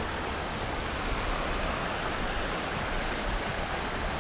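Mountain creek rushing steadily over rocks, an even hiss of water with an uneven low rumble beneath.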